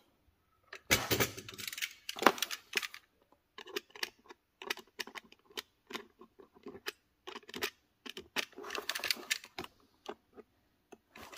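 Irregular light clicks and short scrapes of a small tool working at a small ball bearing, picking out a particle of debris.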